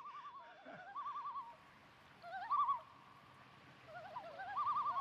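Common loons giving their wavering tremolo call in several short bouts. A higher and a lower voice overlap, and the longest bout comes near the end.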